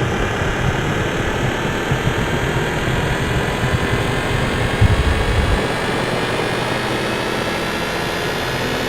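Designed fantasy power sound effect: a dense, steady rumbling rush like a jet engine, with a brief louder swell a little before five seconds, after which the low rumble settles into a steadier hum.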